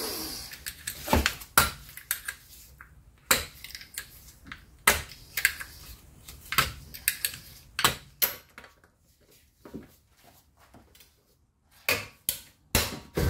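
Lug bolt covers being pulled off the bolts of an alloy wheel: a string of irregular sharp plastic clicks and taps, thinning out for a few seconds near the end before a last few clicks.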